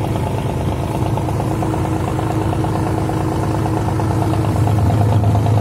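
Tugboat's diesel engine running steadily while towing a barge, a loud continuous drone that grows a little stronger near the end.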